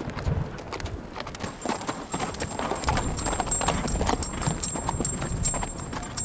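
Horse hooves clip-clopping on the ground in a continuing series of irregular hoofbeats.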